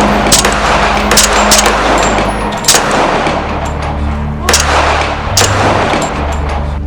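Film sound-effect gunfire: a series of single gunshots at uneven intervals, from a fraction of a second to nearly two seconds apart, each followed by an echoing tail.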